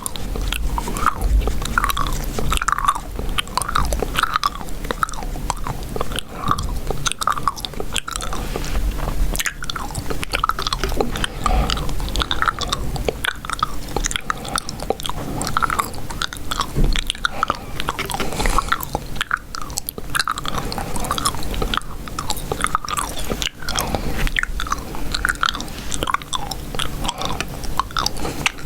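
Close-miked chewing gum: steady wet chewing and mouth smacks, about two a second.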